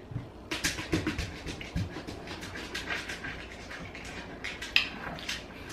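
Sipping and swallowing cola, then lip smacking and small wet mouth clicks while tasting it: a run of irregular little clicks, with one louder click near the end.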